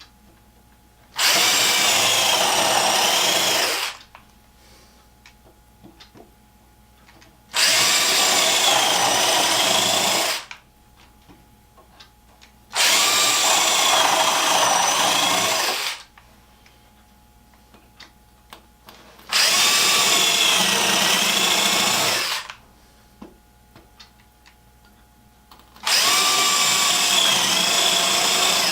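Power drill running in five bursts of about three seconds each, its motor pitch wavering under load as it works into the wooden base of a toolbox, with small handling clicks in the pauses between.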